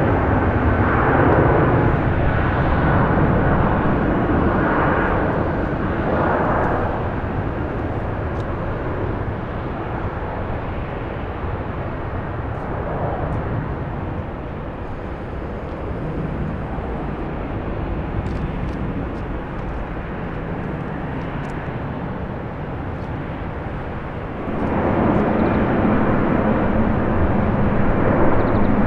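Airbus A330-200 jet airliner's engines roaring during its takeoff, the sound slowly fading. About 24 seconds in, an abrupt cut to a Boeing 777-300ER's engines, louder and steady with a low hum.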